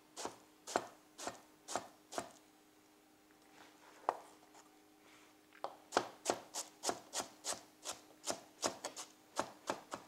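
Chef's knife chopping soft mango slices on a plastic cutting board: a run of sharp knife strikes, sparse for a few seconds in the middle, then a quicker run of about three cuts a second.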